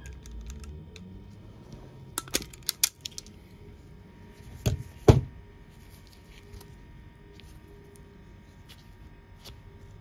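Self-adjusting automatic wire stripper gripping and stripping insulation off a red wire: a quick run of sharp metallic clicks about two seconds in, then two louder clacks as the jaws snap open about five seconds in.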